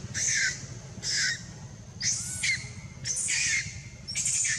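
Baby monkey crying: a string of five short, shrill, high-pitched cries, about one a second, some sliding down in pitch, over a steady low hum.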